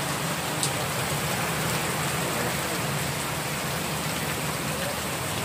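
Steady rain falling on a wet street, an even hiss of drops.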